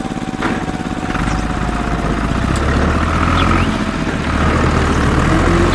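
Vehicle engine running steadily, with a deeper low rumble joining about a second in.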